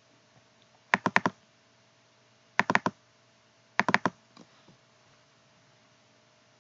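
Computer mouse double-clicking: three quick clusters of sharp clicks, about a second, two and a half seconds and four seconds in.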